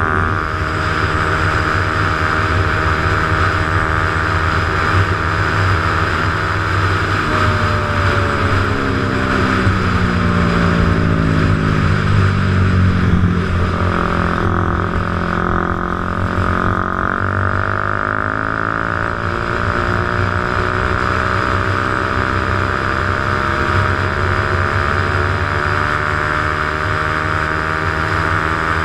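Motorcycle riding at speed on a wet road: a steady engine hum over the rush of wind and tyre spray. About a third of the way in, the engine note falls for several seconds, then climbs again as it speeds back up.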